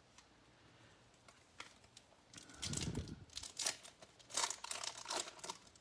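A 2019 Bowman Platinum baseball card pack's wrapper being torn open and crinkled, with the cards rustling as they are pulled out. It is a quick run of crackly tears and rustles that starts about two seconds in, after a near-quiet start.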